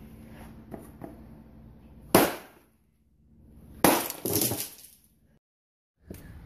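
A steel piñata stick smashing into a cardboard cupcake piñata stuffed with candy, which breaks open. One sharp crash comes about two seconds in, then another crash with a quick follow-up hit about four seconds in.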